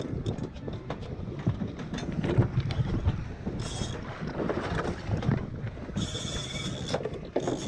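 Wind buffeting the action-camera microphone over the steady rumble of a boat at sea and water against the hull, with irregular clicking from a heavy jigging reel being cranked. Two short hissy gusts stand out about three and a half seconds in and again near the end.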